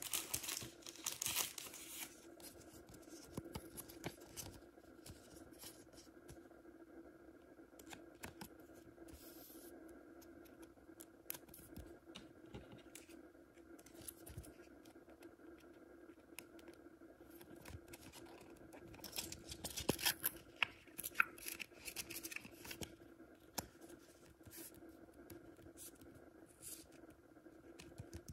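Trading cards and clear plastic card sleeves being handled: rustling and crinkling of plastic with small clicks and scrapes. It is louder right at the start and again about twenty seconds in, over a faint steady hum.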